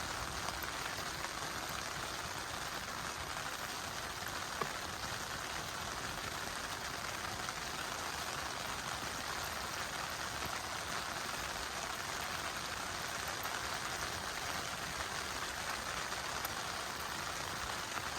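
A steady, even hiss of water noise, with one faint click about four and a half seconds in.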